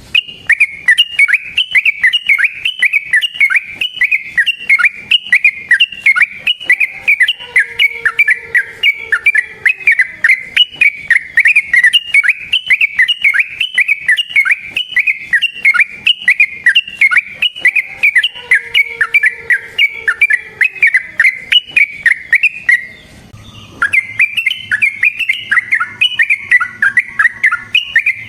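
Yellow-vented bulbul (trucukan) singing a long, fast, unbroken run of rolling notes, many per second, with one brief pause about 23 seconds in.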